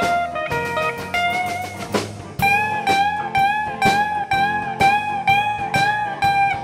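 Live blues band in an instrumental break: an electric guitar solo over bass and drums. About two and a half seconds in, the guitar settles into a fast repeated lick, bending up to the same note about three times a second.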